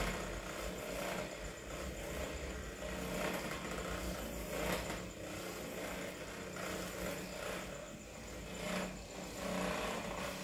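Handheld electric percussion massage gun running against a person's neck: a steady mechanical motor buzz.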